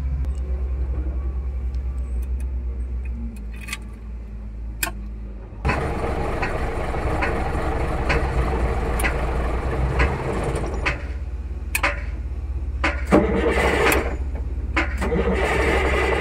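Cummins NHC-250 diesel in an REO 5-ton military truck being cranked on the starter, on its first start attempt after an overhaul. It cranks in two bouts: one of about five seconds starting about six seconds in, and another from about thirteen seconds in.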